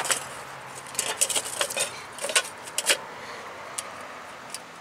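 Scattered light metallic clinks and knocks, several over a few seconds, as a steel steering knuckle with its wheel hub bearing assembly is turned over and set down.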